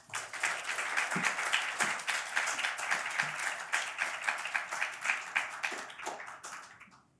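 Audience applauding steadily, then dying away about a second before the end.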